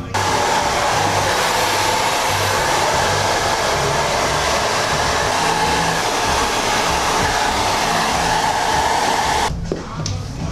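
Handheld hair dryer running at a steady rush of air with a steady whine in it, switched on right at the start and cut off about a second before the end.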